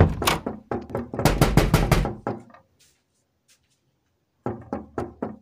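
Rapid knocking on a door: a fast, loud run of knocks for about two seconds, then a pause, then another run of quick, slightly quieter knocks, about six a second, starting near the end.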